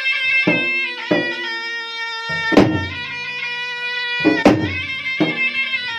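Bugis-Makassar gendang music: two double-headed barrel drums beaten by hand and stick in an irregular pattern, with heavy strikes about two and a half and four and a half seconds in, under a continuous high, held melody.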